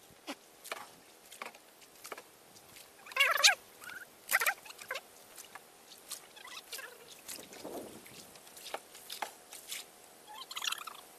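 Light clicks and knocks from handling a cast net in a small boat, with two short wavering cries about three and four and a half seconds in.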